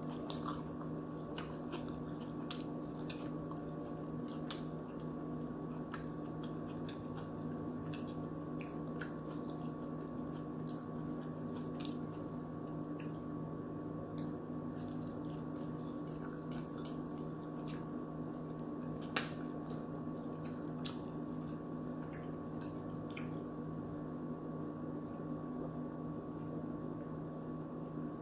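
Close-miked eating: chewing and small wet mouth sounds, with scattered light clicks of a fork against a plate, over a steady low hum. Two clicks in the second half stand out louder.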